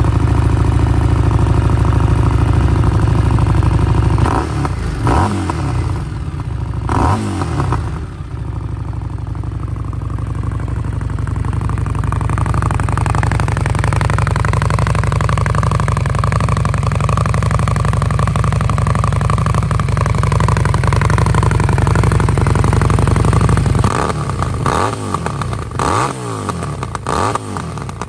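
Harley-Davidson Street Rod 750's V-twin engine idling, revved twice about five seconds in, then held steady at higher revs for a long stretch, and blipped several times near the end.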